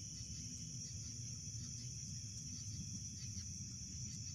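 Night insect chorus of crickets: a steady, unbroken high trill over a low background rumble, with a few faint scattered clicks.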